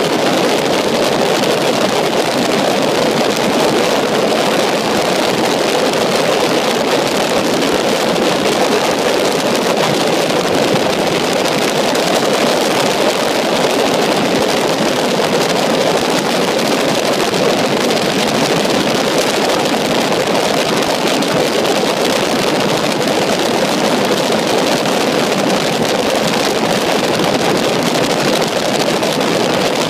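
Steady rush of wind and engine noise from aboard a helicopter in flight, unchanging in level throughout.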